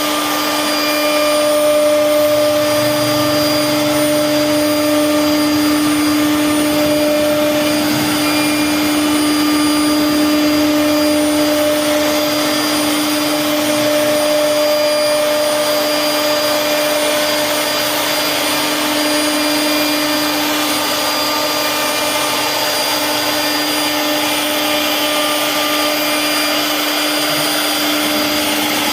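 CNC router spindle running and cutting wood: a steady high whine over a hiss of cutting noise, with no break.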